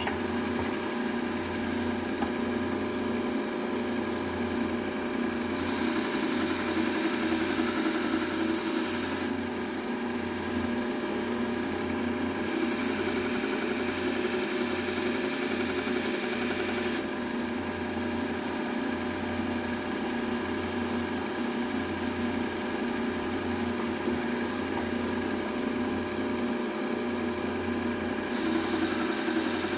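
A Bucktool low-speed belt sander runs steadily with a hum. A knife blade is drawn across its fine Trizact A30 belt (about 600 grit) in passes that add a grinding hiss: about six seconds in, again about thirteen seconds in, and near the end.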